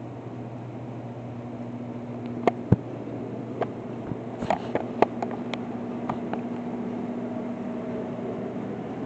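Steady machine hum with a low, even tone, the kind a fan or air conditioner makes, and a scatter of irregular clicks and knocks from about two and a half to six and a half seconds in.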